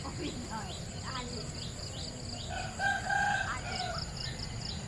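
A rooster crows once, about halfway through: a held call ending in a falling note. Underneath runs a steady high chirping that repeats two or three times a second.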